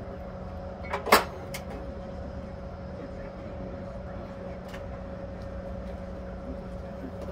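Steady mechanical hum with a low and a higher held tone, broken about a second in by one loud sharp knock and a few fainter clicks later.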